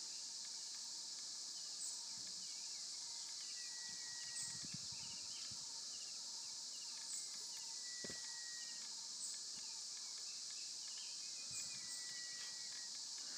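Faint outdoor ambience: a steady insect chorus with scattered bird chirps, and a thin held whistle that comes three times, about four seconds apart.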